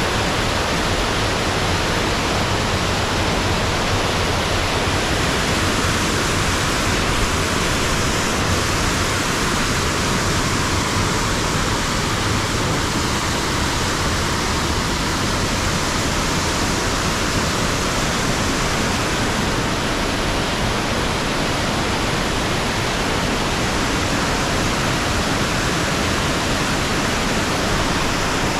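Waterfall pouring: a steady, loud rush of falling water that stays the same throughout.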